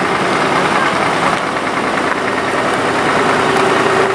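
Diesel engine of a Scania fire engine running as the truck rolls past close by, with a steady hum that grows stronger about three seconds in.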